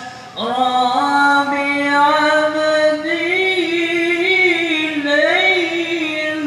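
A man reciting the Quran in the melodic qari style, amplified through a handheld microphone. He sings one long, ornamented phrase that starts about half a second in, climbs to a higher pitch about three seconds in, and wavers through turns of the melody.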